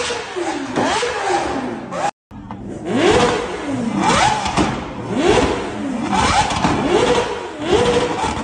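Kawasaki Ninja H2R's supercharged inline-four and Lamborghini Aventador SVJ's V12 revved hard in a rev battle, in rapid repeated blips that rise and fall in pitch. The sound drops out briefly about two seconds in, then the revving resumes.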